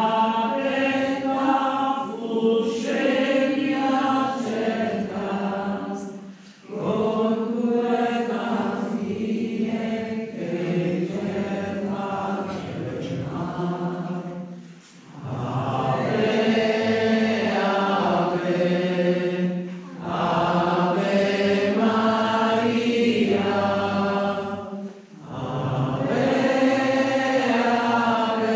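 Voices singing a hymn together, likely the entrance hymn of the Mass, in long sung phrases with brief breaks between them about four times.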